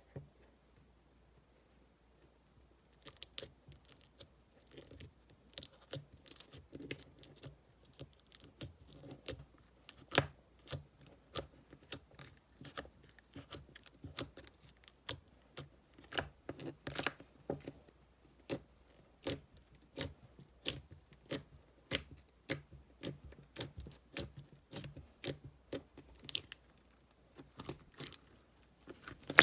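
Slime being squeezed and stretched by hand: a run of quick sticky clicks and crackles, starting about three seconds in and continuing throughout.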